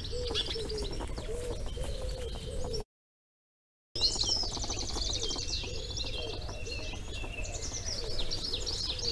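Garden birdsong: several small birds chirping and trilling high, with a pigeon cooing low over and over, over a steady low rumble. The sound cuts out completely for about a second, about three seconds in.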